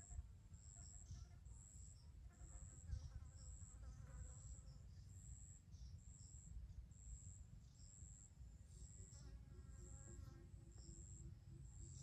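Faint, steady insect chirping: a short, high pulse repeated about once a second, over a low rumble.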